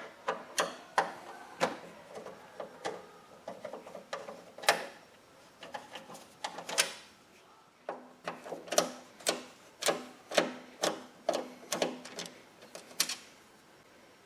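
Phillips screwdriver turning out the screws on a steel computer case's side panel: a run of sharp, irregular metal clicks, about one or two a second.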